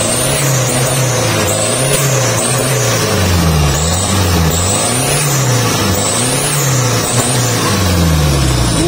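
Mitsubishi Canter truck's diesel engine being revved over and over while it is tuned, the revs climbing and dropping about once a second. A high whine rises and falls with each rev.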